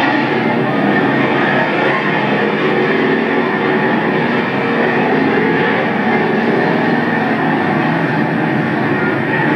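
Engines of a pack of street stock race cars running on a dirt oval, a steady dense drone with no letup, heard from an old camcorder tape played back through a TV speaker.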